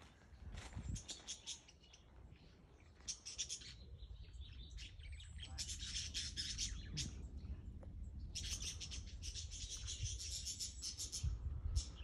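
Budgerigars chattering, rapid high chirps coming in several bouts of one to two seconds each.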